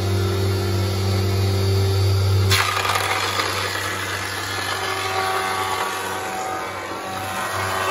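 Four-sided planer running with a steady motor hum. About two and a half seconds in, the sound changes suddenly to a dense, even rush of the cutter heads planing a board.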